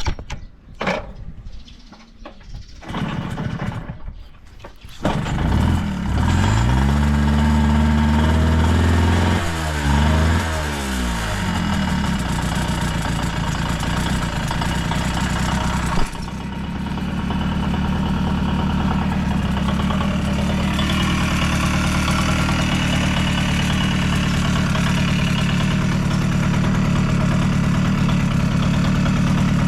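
Yamaha YB-1 50cc two-stroke single-cylinder engine being cold-started. A few knocks and clatters come first. The engine catches about five seconds in, is revved up and down several times, and then settles into a steady idle. There is one sharp click midway through.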